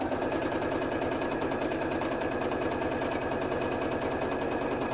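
Domestic sewing machine running steadily at speed, its needle hammering in a fast, even rhythm while stitching an appliqué fabric piece down.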